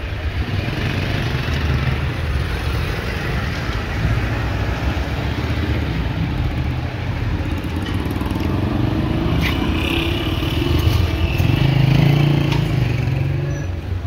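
Street traffic with motorcycles running past; an engine grows louder about eleven seconds in, then fades, with a few light clicks around it.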